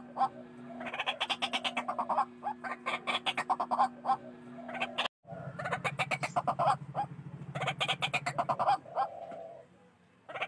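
White-breasted waterhens (ruak-ruak) calling: fast runs of loud, harsh repeated notes. The sound cuts out completely for a moment about halfway through, then the calling resumes, and it thins out near the end.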